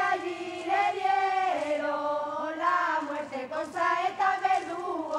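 Singing: a high voice holds long notes and slides from one pitch to the next, as in a slow, lament-like song.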